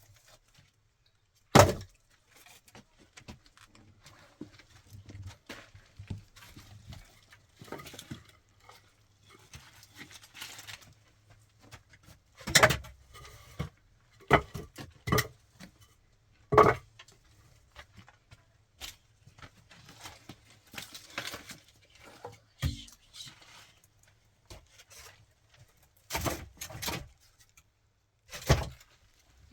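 Intermittent knocks, clicks and clatter of objects being handled, with several loud sharp impacts: one about a second and a half in, a cluster in the middle, and two near the end.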